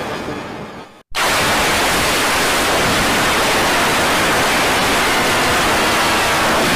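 A heavily distorted sound fades away over about a second and cuts to a moment of silence. Then a steady, loud hiss of static noise sets in.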